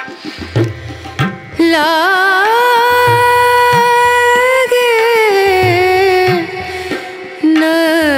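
Background music in an Indian style: a voice sings long, wavering held notes over a repeating pattern of low drum strokes. The singing comes in about one and a half seconds in and breaks off briefly near the end before resuming.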